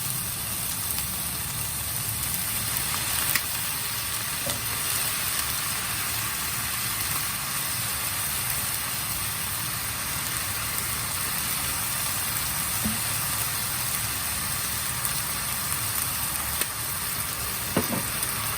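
Food frying in a pan: a steady sizzle with a few faint clicks.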